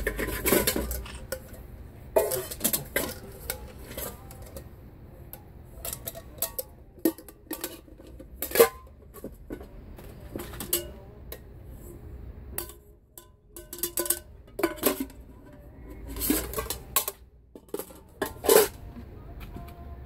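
Pieces of a metal camping cookware set (nesting pots and utensils) clattering and clinking as they are handled and checked over. The knocks are irregular, some with a brief ring.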